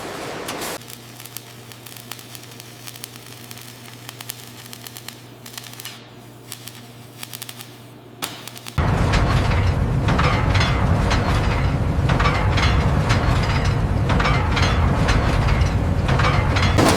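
Industrial factory sounds: a steady low machine hum with scattered clicks and ticks. About nine seconds in, a much louder rushing, crackling noise starts and runs on.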